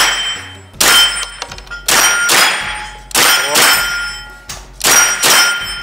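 Saiga-9 carbine fired in quick doubles: about eight sharp shots in four pairs, each pair well under half a second apart. Each is followed by a ringing ping from the steel plate targets being hit.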